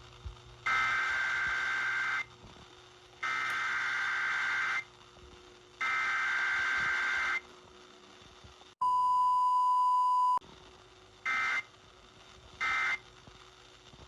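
Emergency Alert System test over the radio: three identical bursts of warbling digital SAME header tones, then a steady beep lasting about a second and a half, then two shorter bursts of the same data tones.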